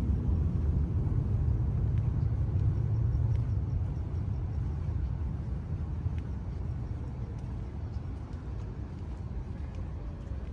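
Low rumble of a passing vehicle over city ambience, loudest in the first few seconds and fading after about four seconds.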